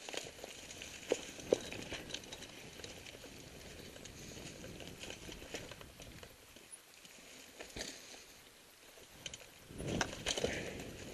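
Mountain bike riding over a dirt trail covered in dry leaves, heard from the rider's helmet: a steady rolling rustle of tyres with scattered sharp clicks and knocks from the bike, growing louder and busier about ten seconds in.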